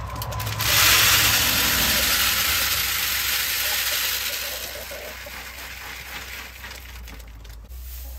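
Dry chicken feed poured from a plastic bucket into a hanging plastic poultry feeder: a rushing, hissing pour of small grains that starts about a second in and tapers off over the next four seconds.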